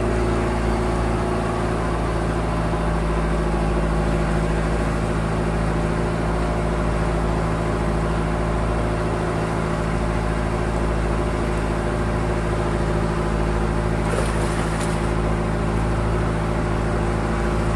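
A small engine running steadily at an even speed, with a short hiss about fourteen seconds in.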